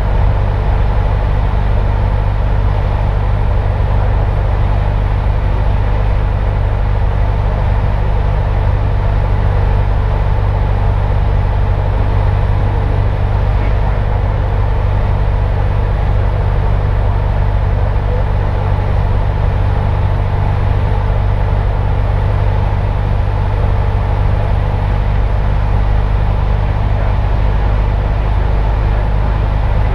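Piston engine and propeller of a single-engine light aircraft in flight, heard from inside the cabin as a loud, steady, unchanging drone with a deep hum.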